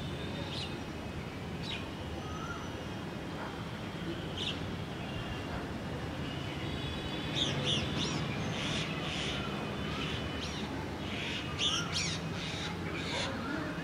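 Birds calling from the trees, crows cawing among them: a few single calls at first, then a busier run of calls from about seven seconds in, over a steady background hum.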